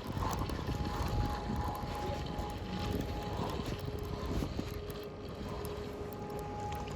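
Low rumbling wind noise on the microphone outdoors, with a faint steady tone that comes and goes for a few seconds at a time.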